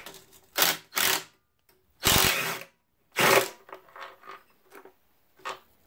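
Cordless impact driver running in four short bursts, the longest about two seconds in, backing bolts out of a Ford Model T engine's pan flange. Faint metal clicks follow as the loosened bolt and nut are handled.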